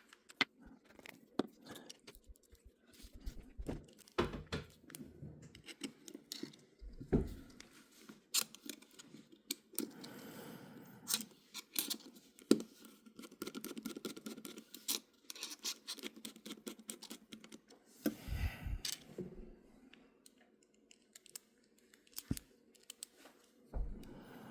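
Small metal parts of a folding knife being handled and fitted back together: irregular light clicks, taps and scrapes as the pocket clip and small screws are put back on.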